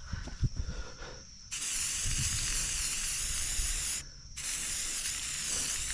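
Aerosol spray-paint can spraying in two long, even hisses, with a short break about four seconds in, as a missed spot is touched up.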